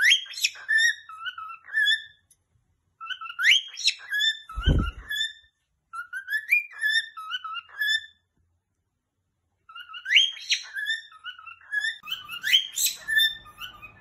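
Cockatiel singing its whistled display song: the same phrase of rising and falling whistled notes, repeated about five times with short pauses. A dull bump comes about a third of the way in.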